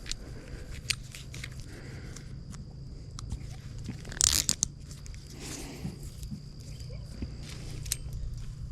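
Footsteps and handling noises crunching on stick-laden wood-chip mulch: scattered crackles and clicks, with one louder crunchy rustle about four seconds in.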